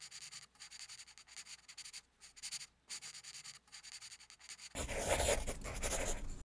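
Pencil drawing on paper: quick scratchy strokes in short broken runs. About three-quarters of the way through, it turns to a louder, denser rubbing, as of shading or colouring in.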